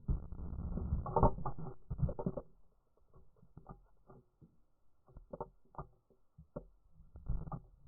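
Faint, muffled handling noise: soft rustling with light taps for the first two and a half seconds, then only scattered faint taps.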